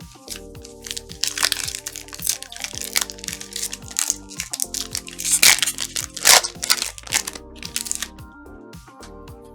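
Crinkling and crunching of plastic trading-card pack wrappers being torn open and handled, in irregular bursts, over steady background music.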